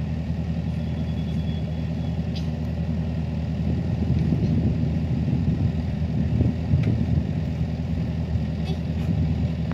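Diesel engine of a mini excavator running steadily, a low even hum that holds one pitch throughout.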